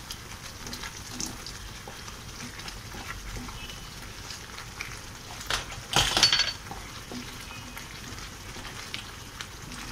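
Palak paneer gravy sizzling and bubbling in a non-stick pan on high flame while it is stirred with a spatula, a steady fine hiss. About six seconds in, the spatula scrapes louder against the pan for a moment.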